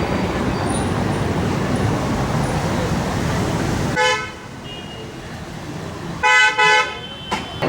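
Vehicle horns honking over steady road noise: one short honk about four seconds in, then two louder honks near the end.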